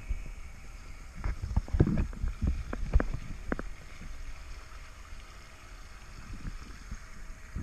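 Water splashing and washing against the bow of a paddled board, with low wind rumble on the microphone. A run of sharp splashes comes in the first few seconds, then the wash settles to a steadier hiss.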